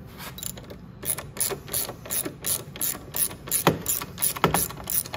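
Ratchet clicking in quick, even strokes, about three a second, as it is swung back and forth to undo a 12 mm exhaust mounting bolt whose nut is held with a wrench. A couple of the clicks near the end are louder.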